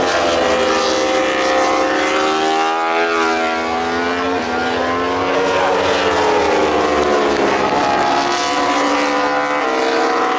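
Racing motorcycle engines howling at high revs on track, several machines at once. Their pitch glides down and back up, with sudden steps about four and a half seconds in and again near the end.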